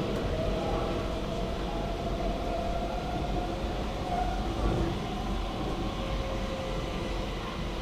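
Stockholm metro train running, heard from on board: a steady rumble of wheels on rails with faint whining tones.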